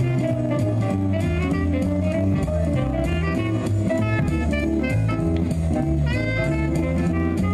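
Live jazz band: saxophones playing over a stepping bass line, drum kit and guitar.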